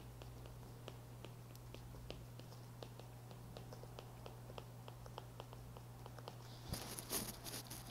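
Stylus tapping and scratching on a tablet's glass screen during handwriting: a run of light, irregular ticks, then louder scratchy rustling near the end, over a steady low hum.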